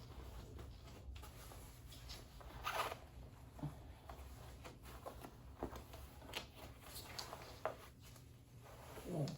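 A dog coat being handled and fitted onto a dog: scattered short rustles and zip-like rasps of the fabric and fastenings, the loudest about three seconds in and near the end.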